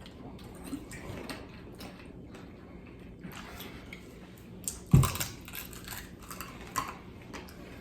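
Eating noises from fried chicken feet: small crunches and clicks of biting and handling the bony pieces, with one sharp knock about five seconds in and a lighter one shortly after.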